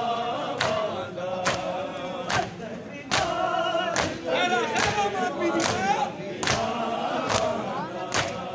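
Men chanting a noha together, marked by sharp, even strikes of matam, open hands slapping bare chests in unison a little under once a second.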